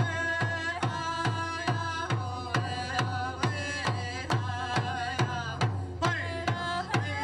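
A man singing long held notes while beating a small hide hand drum with a stick in a steady beat of a little over two strokes a second. His voice breaks off briefly about six seconds in while the drumming carries on.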